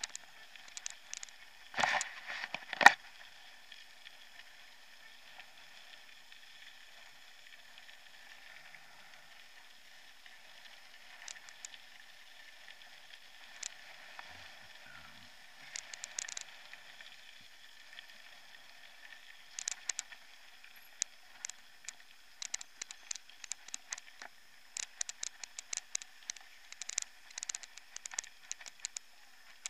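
A mountain bike rolling over a gravel track: a thin, steady hiss with rattling clicks from the bike. There are two loud knocks about two and three seconds in, and the clicks come thick and fast in the last third.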